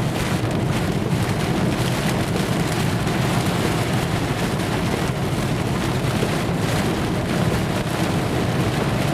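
Rain and wind on a moving car in a severe thunderstorm, heard from inside the cabin, with steady road and engine noise beneath.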